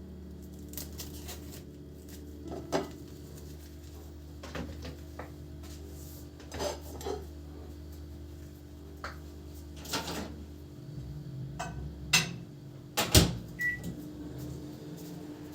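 A steady appliance hum that stops about eleven seconds in, with scattered clicks and knocks of household handling, a loud knock near the end, and a short high beep just after it.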